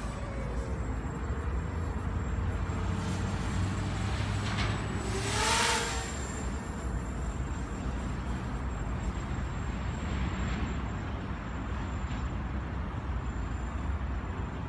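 Motors of a small FPV racing quadcopter, a Graupner Alpha 250, whining and shifting pitch with the throttle over a steady low rumble; about five seconds in it passes closer and swells louder, its pitch sliding up and then down.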